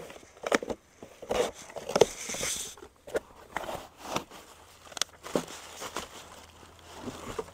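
A cardboard box being opened by hand and a plastic bag inside it handled: irregular rustling, scraping and light taps of cardboard flaps and crinkling plastic.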